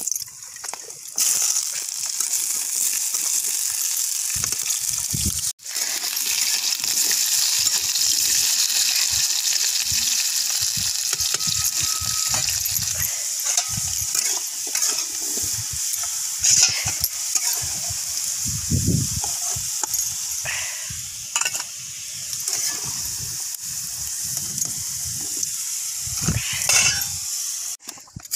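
Cubed potatoes sizzling as they fry in hot oil in an iron kadai, with a metal spatula scraping and stirring them now and then. The sizzle starts about a second in and then runs steadily.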